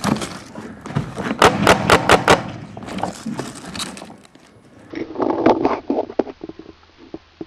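Paintball markers firing: sharp pops in quick runs of several shots a second, with noise between the volleys.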